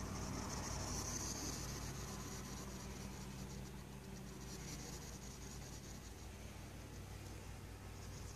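Faint scratchy rustling over a low, steady hum.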